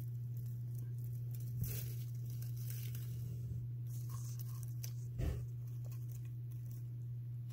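Winter white dwarf hamster moving through wood-shavings bedding: light rustling and crackling of the shavings, with a soft thump about five seconds in, over a steady low hum.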